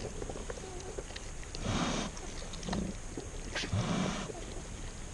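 Farrowing sow grunting in short, noisy, low bursts, three of them about a second apart.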